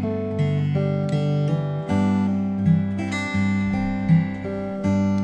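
Koa jumbo acoustic guitar in open G (taro patch) tuning, fingerpicked slack key style: a melody over alternating bass notes, with hammer-ons and pull-offs into a C chord.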